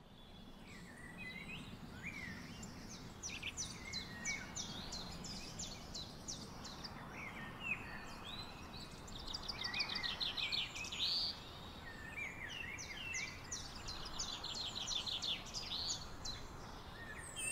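Several birds singing and calling: quick chirps, sliding whistles and rapid trills, over a faint steady outdoor background noise.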